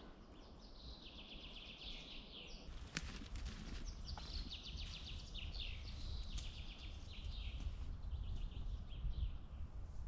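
Songbirds singing repeated trilled phrases over a low, steady background rumble, with a couple of sharp clicks about three and four seconds in.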